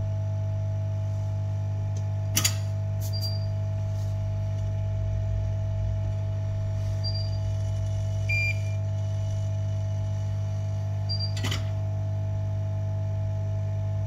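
Steady electrical hum with a fainter steady tone above it. Two sharp clicks sound about two seconds in and again near the end, and a few brief faint high beeps come and go.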